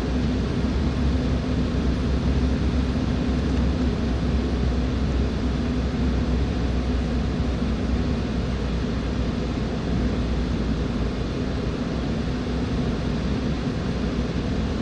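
Inside the cabin of an Embraer 195 airliner on final approach: the steady rumble of its GE CF34-10E turbofan engines and rushing air, with a steady low hum underneath.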